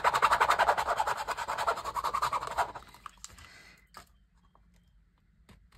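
Plastic hairspray lid twirled quickly against a dye ink pad, a fast scrubbing rhythm of about nine strokes a second that stops about three seconds in. A single light click follows about a second later.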